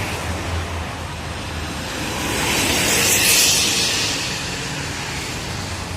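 Highway traffic: a vehicle passes close by, its tyre and wind noise swelling to a peak about three seconds in and then fading.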